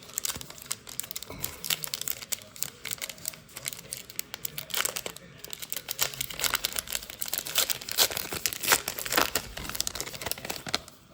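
Plastic wrapper of a baseball card pack being torn open and handled, an irregular run of crinkling and crackling with a few tearing rips.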